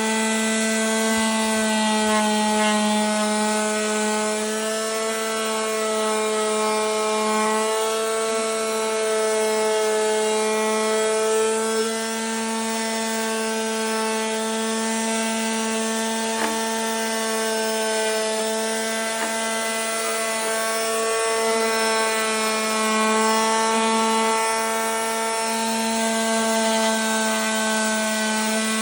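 SKIL SR232301 corded detail sander running steadily while sanding: a constant, even-pitched motor hum with the scratchy rasp of sandpaper on the surface over it.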